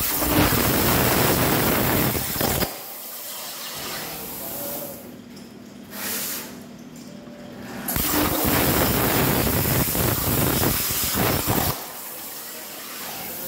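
CNC plasma cutter torch cutting steel plate: two loud hissing bursts of the arc, each about three to four seconds long, one at the start and one about eight seconds in. Quieter noise fills the gaps while the arc is off.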